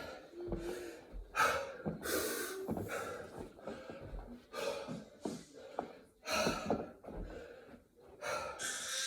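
Heavy, gasping breaths of a man worn out mid-way through a set of burpees, each breath loud and ragged, with a few dull thuds mixed in.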